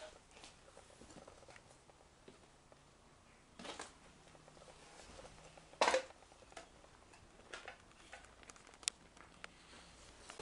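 Footsteps on a rubble-strewn floor: sparse, faint crunches and knocks at irregular intervals, the loudest about six seconds in.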